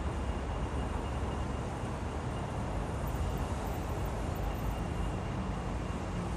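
Steady low rumble of distant city traffic, an even outdoor hum with no distinct events.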